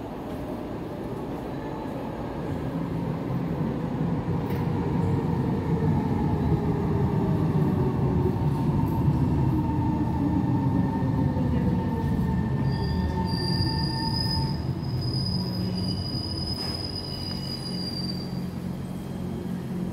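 A Kawasaki C151 metro train pulls into an underground station behind platform screen doors, with a low rumble. Its traction motors whine in several tones that fall steadily in pitch as it brakes. A high, steady squeal rings out for about six seconds in the second half as it draws to a stop.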